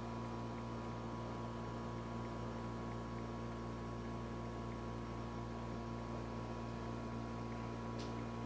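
Steady low electrical hum with a few faint steady tones over light hiss: quiet room tone. A faint tick comes near the end.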